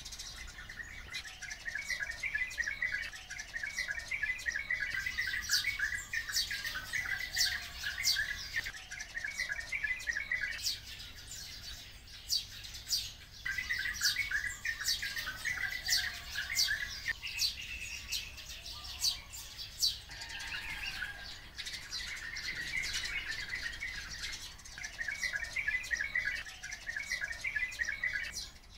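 Oriental white-eyes and sparrows calling together: a dense run of short, high chirps over a rapid twittering chatter that comes and goes in stretches, with a few short lulls.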